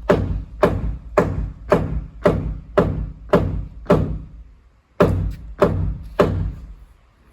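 Hammer blows on wood framing, a steady series of about two strikes a second, breaking off about four seconds in, then three more strikes.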